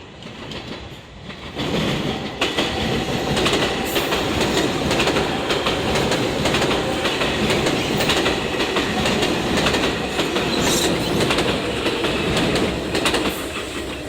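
Limited express train passing a level crossing at high speed. It swells as it approaches, then from about two seconds in runs as a loud, continuous rush with rapid clicking of wheels over rail joints.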